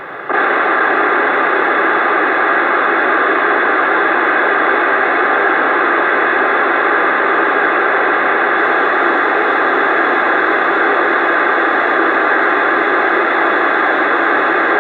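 Loud, steady static hiss from a CB radio receiver, switching on abruptly right after the start and holding level without a break.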